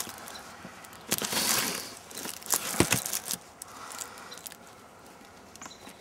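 Plastic shrink-wrap on a cardboard box crinkling and rustling as hands handle the box, with a run of sharp taps and clicks around the middle, quieter in the second half.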